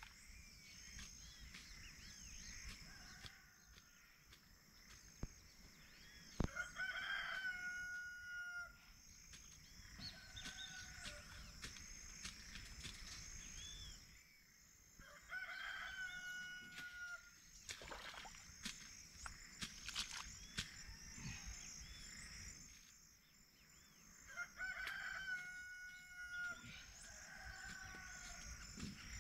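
A rooster crowing several times, each crow a held call that falls away at the end, over a steady high-pitched drone, with a few scattered knocks.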